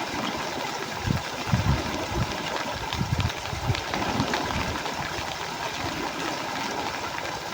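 Shallow water sloshing and splashing, with a few dull splashes between about one and four seconds in.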